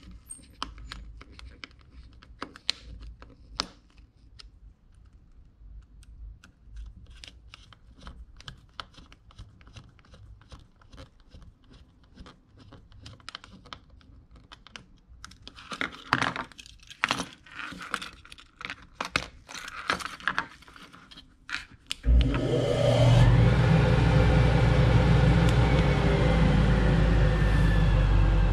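Small screws being driven into a plastic key-fob remote with a screwdriver: scattered clicks and scrapes, with the jangle of the fob's metal keychain clip. Near the end a dust collector motor starts suddenly and runs loud and steady with a low hum, switched on from the remote, which shows the remote's switch settings now match the dust collector switch.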